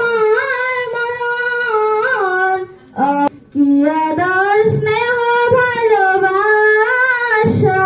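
A woman singing a Bengali song into a microphone, unaccompanied, in long drawn-out notes; she breaks off briefly about three seconds in, then carries on.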